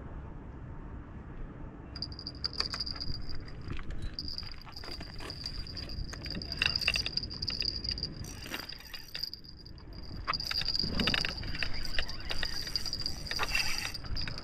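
Light clinking and rattling handling sounds, many small clicks in quick runs, over a steady thin high-pitched whine that starts about two seconds in.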